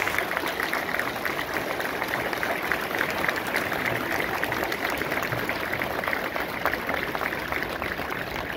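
Large audience applauding, a dense steady clapping that eases slightly near the end.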